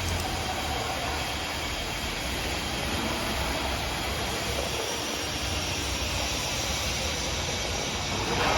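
Steady factory-floor background noise: an even hiss with a low hum underneath, with no distinct knocks or events.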